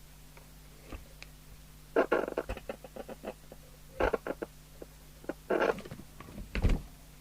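Clicks, knocks and rustles of equipment being handled on a workbench, in short clusters every second or two, over a steady low mains hum.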